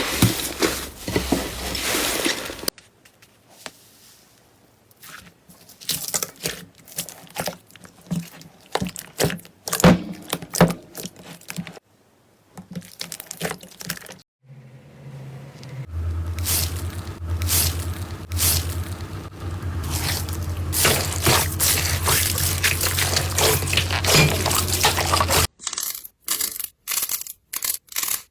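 Slime being poked, pressed and stretched by hand: dense runs of crackling clicks and wet pops, in several short takes separated by brief pauses. A low steady hum sits under the clicks for a stretch in the second half.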